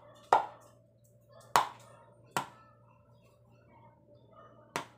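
A raw egg tapped against the rim of a plastic bowl to crack it: four sharp taps, unevenly spaced.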